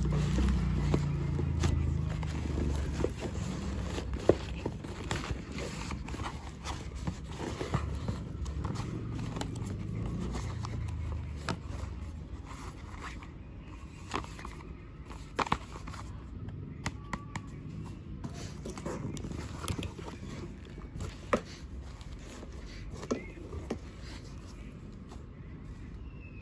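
Cardboard packaging and tissue paper being handled: box flaps scraping and clicking, paper rustling, with scattered sharp taps. A low rumble sits under the first few seconds.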